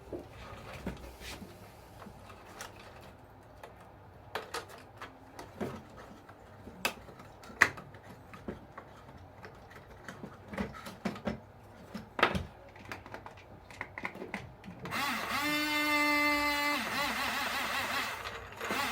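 Small parts clicking and knocking as they are handled, then about fifteen seconds in an RC bulldozer's small electric drive motor and plastic gearbox runs with a steady whine for about two seconds before running on more roughly.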